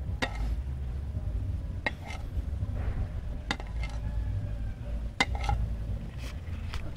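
Cleaver blade knocking on a plate as hotdogs are sliced, a sharp click with each cut, about six cuts a second or so apart. A low steady rumble lies underneath.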